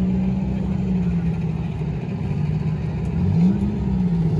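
Demolition derby car engines running loud and steady, with one revving up and dropping back about three seconds in.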